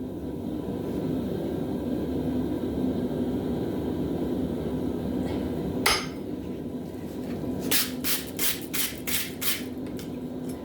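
Forging hammer blows ringing on steel, about three a second over the last three seconds, after a single clang near the middle, over a steady forge roar.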